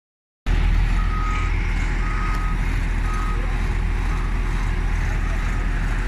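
JCB wheel loader's diesel engine running steadily under load, with its reversing alarm beeping about once a second as it backs up towing the mired concrete mixer truck.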